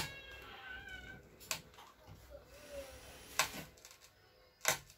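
A cat meows, the call trailing off about a second in, and a few sharp clicks follow: one about a second and a half in, then two louder ones at about three and a half seconds and near the end.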